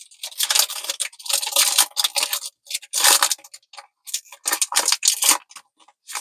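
Foil wrapper of a Pokémon trading-card booster pack crinkling as it is handled and opened, in a run of irregular rustling bursts with short pauses.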